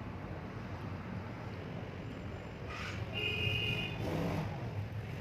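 Road traffic running steadily, with a short vehicle horn toot about three seconds in.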